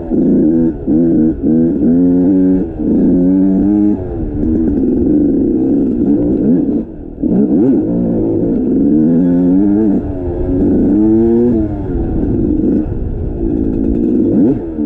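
Dirt bike engine under way, its pitch repeatedly climbing and dropping as the throttle is worked, with a brief dip about seven seconds in.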